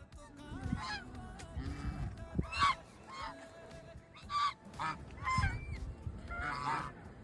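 A flock of domestic waterfowl calling, several birds giving short loud calls one after another and overlapping, about one call every half second to a second.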